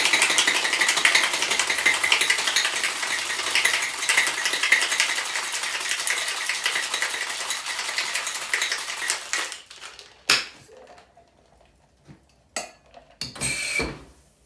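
Ice rattling hard inside a metal tin-on-tin cocktail shaker, shaken vigorously for about nine and a half seconds before it stops. A few sharp metallic knocks and a short clatter follow near the end as the tins are knocked apart and set down on the bar.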